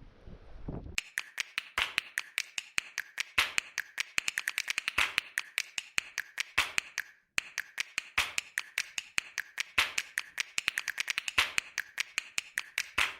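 A rapid, irregular series of sharp clicks, several a second, broken by a brief silence about seven seconds in, after a second of wind and boat noise at the start.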